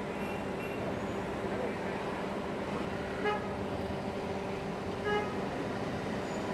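Busy street traffic noise with a steady low hum underneath, broken twice by a short vehicle horn toot, about three seconds and about five seconds in.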